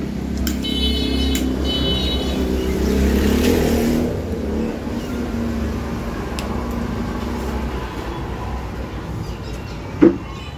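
A motor vehicle's engine running nearby: a steady low rumble that swells about three to four seconds in and then eases off, with one brief sharp sound near the end.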